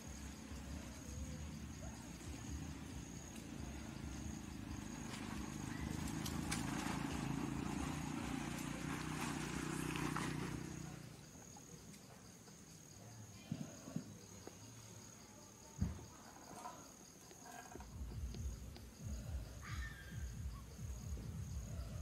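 Outdoor ambience with a steady, high, slightly pulsing insect trill throughout. A low rumble sits under it for about the first half, and a few short knocks follow later.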